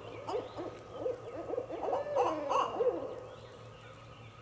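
A mating pair of barred owls calling together in a frenzied run of hoots, many quick notes rising and falling in pitch, that dies away about three seconds in.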